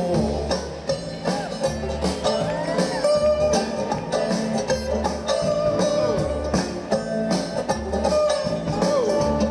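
Live country band playing an instrumental break: banjo picking over drums and bass, with gliding lead lines on top.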